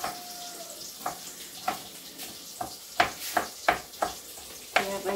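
Pasta sauce of onion and bell pepper sizzling in a pan while a spoon stirs it, scraping and knocking against the pan about nine times, more often in the second half.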